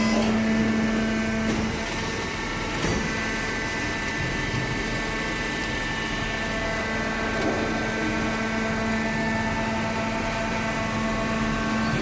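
Hydraulic pump and electric motor of a vertical downstroke baler running steadily, a hum of several steady tones. The hum's pitch shifts a little under two seconds in, with a faint knock soon after.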